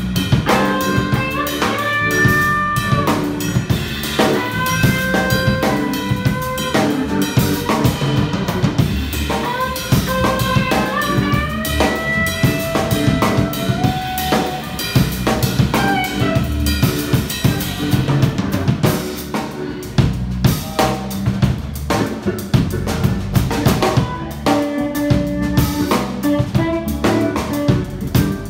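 Live instrumental band playing: a drum kit keeps a steady beat under electric bass, while a pedal steel guitar plays a melody of sliding notes that glide up and down in pitch.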